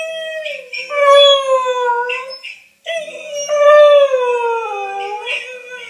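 Whippet howling: three long howls that waver and sink in pitch, with short breaks between them.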